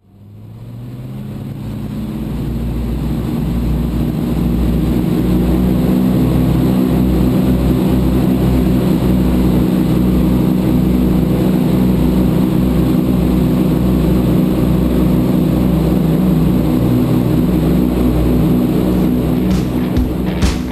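Aircraft piston engines droning steadily with a deep rumble, fading in over the first few seconds.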